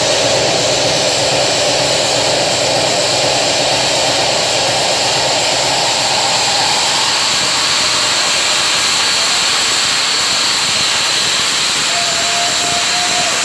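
Club sound system playing a DJ's electronic set through a phone microphone: a loud, beatless wash of noise with a slowly drifting tone, like a breakdown sweep, and a thin steady tone coming in near the end.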